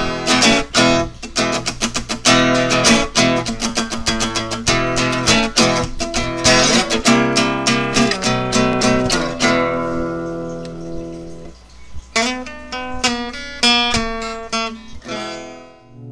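Acoustic guitar music: fast picked notes and strums, a chord left ringing about ten seconds in, then strumming again from about twelve seconds.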